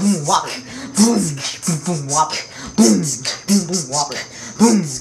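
Mouth beatboxing by a teenage boy: a repeating beat of sharp hissing hi-hat sounds and short, bending vocal bass notes, coming round about once a second.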